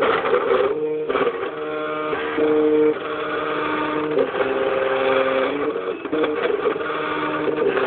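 MakerBot 3D printer's stepper motors driving the build platform and extruder during a print. They whine in several steady tones that jump to a new pitch about every second as each move changes speed and direction, with short breaks between moves.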